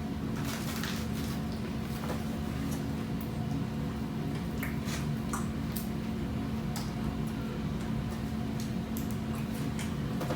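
Close-up mouth sounds of eating fried shrimp and chicken: wet chewing and lip-smacking in irregular short clicks, over a steady low hum.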